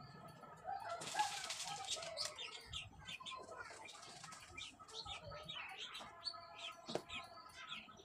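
Small birds chirping in short, repeated calls in the background, with a brief rustle about a second in.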